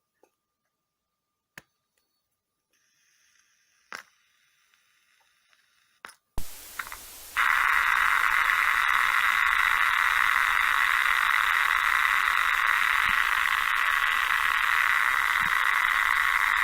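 A loudspeaker driven by a homemade CD6283 IC amplifier hissing with loud, steady static. A few faint clicks come first, then the hiss switches on abruptly about six to seven seconds in.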